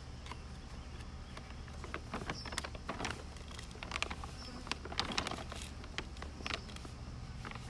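Paper bag of diatomaceous earth rustling and crinkling as a plastic duster bottle is dipped in and filled with the powder: a run of irregular rustles, scrapes and light clicks.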